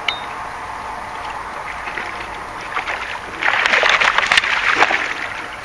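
Water splashing and sloshing at the bank as a hooked carp is brought to the landing net, a loud churning burst lasting about a second and a half from a little past halfway, over steady background noise.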